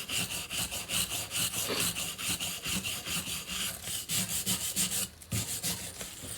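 Stiff wire brush scrubbed back and forth over a Kurt milling machine vise in quick, even strokes, scouring off dried cutting fluid and crud. The strokes break off briefly about five seconds in.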